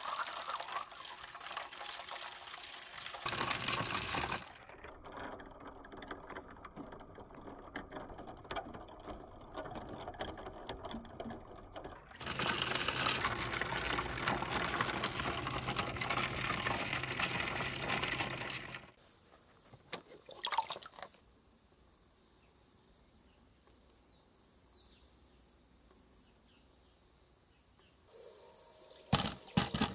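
Many small balls clattering and splashing as they pour into a shallow tray of water: a dense, fast patter of clicks over a watery wash. About two-thirds of the way through it thins to a few clicks and then almost silence, before a fresh burst of loud clicking near the end.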